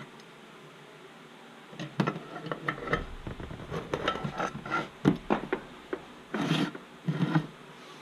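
Metal parts and tools being handled on a workbench: irregular clinks and knocks with short scraping strokes, starting about two seconds in, and two longer rasping strokes near the end.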